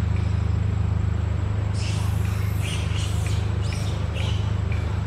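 A steady low engine-like hum runs throughout, with a run of short high chirps, likely birds, from about two to four seconds in.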